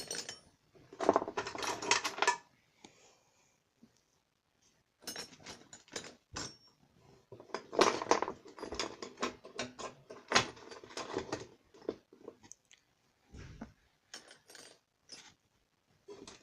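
Small metal hand tools clinking and rattling against each other as they are picked up and sorted. The clinks come in bunches: a short one about a second in, a long busy stretch from about five to twelve seconds, and a few scattered clinks near the end.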